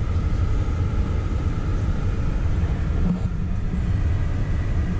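A car driving along a town street, heard from inside the cabin: a steady low rumble.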